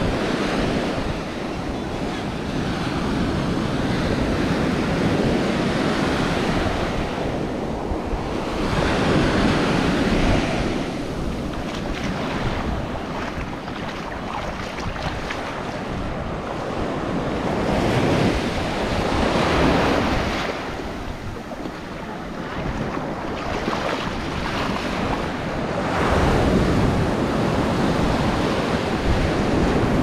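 Ocean surf breaking and washing up the sand, the rush rising and falling every several seconds as each wave comes in, with wind buffeting the microphone.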